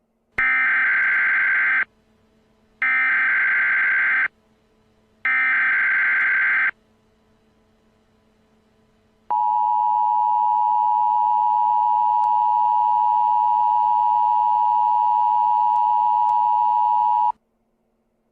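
Emergency Alert System tones: three bursts of the SAME digital header, each about a second and a half long with a short gap between, then the steady two-tone EAS attention signal held for about eight seconds before cutting off. They signal that an emergency alert message follows.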